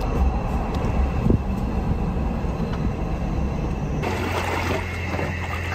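Road noise heard inside a moving vehicle's cabin: a steady low rumble of engine and tyres. About four seconds in it settles into a steadier low hum.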